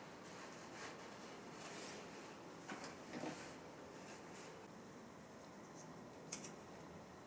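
Faint rustling of a floured cloth being folded and tucked by hand around bread dough, with a few soft handling sounds about three seconds in and a short sharp tick about six seconds in.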